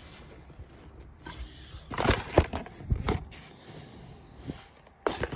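Rummaging and handling noises: things on a truck floor mat being moved about, with a cluster of knocks and rustles about two to three seconds in and another knock at the end.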